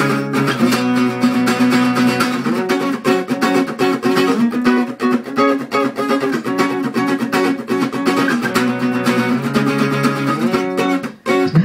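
Solo acoustic guitar playing an instrumental passage of chords and plucked notes, with a brief break near the end.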